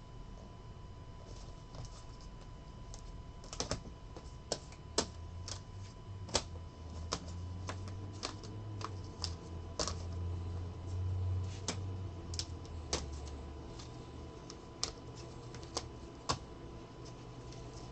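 Irregular light clicks and taps, about one or two a second, over a low steady hum that swells for a few seconds mid-way.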